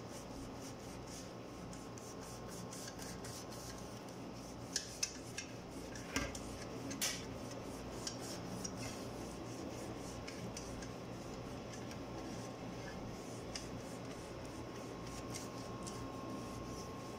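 Silicone pastry brush rubbing and swishing oil across the bottom of a metal baking pan in quick repeated strokes, with a few light knocks against the pan about five to seven seconds in.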